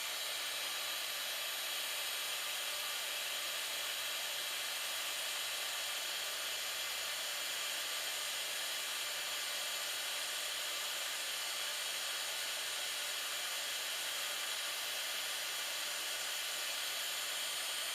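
Heat gun blowing hot air steadily: an even hiss that holds the same level throughout, heating the settings so they melt the solder.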